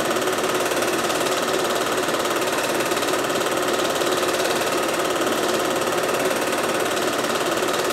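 Film projector running: a steady mechanical whirr and fast clatter.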